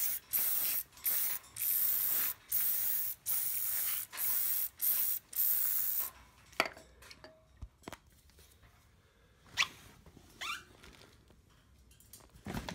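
Degreaser sprayed in a quick series of short hissing bursts, about a dozen in six seconds, onto a part caked with burnt-on oil. After that only a few faint clicks are heard.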